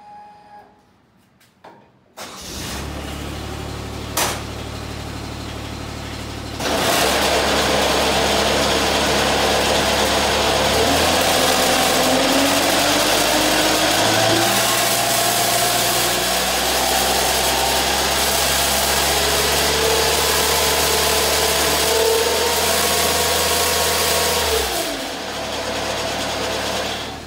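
A Grasshopper mower's engine starts about two seconds in and runs steadily. About five seconds later the front-mounted snow blower is engaged, and its auger and impeller spin freely with no snow in a loud whir with a whine that slowly climbs in pitch. Near the end the blower is disengaged and cuts off sharply, leaving the engine idling.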